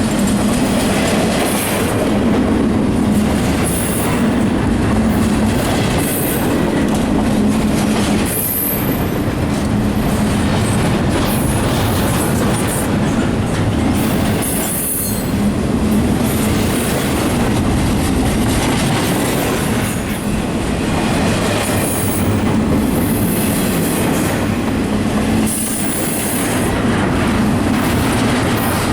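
CSX freight train cars rolling past at close range, a continuous rumble and clatter of wheels over the rails. Short high-pitched wheel squeals come and go every few seconds.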